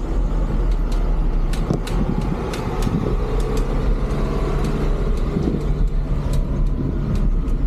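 Street traffic heard from a moving bicycle: a motor vehicle's engine running close by, over a steady low wind rumble on an action camera's built-in microphone, with scattered sharp clicks and rattles.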